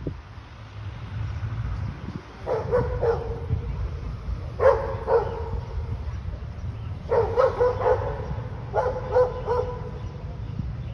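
A 1949 Pruneri tower-clock bell tuned to C strikes the hour, four times at uneven intervals of about two seconds. Each stroke breaks into two or three quick knocks, and a clear tone lingers between strokes.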